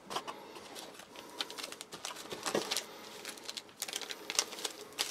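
Scattered light clicks and rustling as small foil and plastic ration sachets are handled and picked out of a cardboard box.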